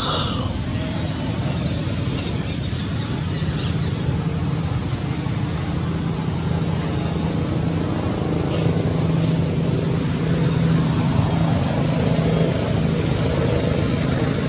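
Steady low hum over outdoor background noise, with a few faint clicks.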